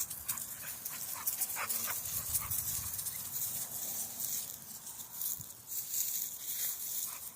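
Two male pit bulls play-fighting: scuffling and rustling, with short dog sounds mixed in.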